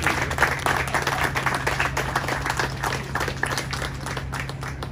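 Audience applauding, many hands clapping, thinning out and getting quieter toward the end.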